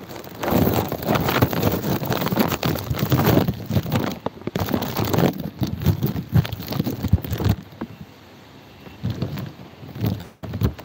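Irregular crackling and rumbling noise on a handheld phone's microphone as it is moved and rubbed. The noise drops off sharply about seven and a half seconds in, with a couple of short swells near the end.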